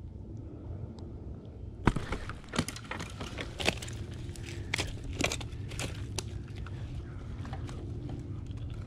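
Rustling and crackling of handling and movement close to a body-worn camera while a smallmouth bass is unhooked: a run of sharp clicks and crackles starts about two seconds in and eases off about six seconds in, over a steady low rumble.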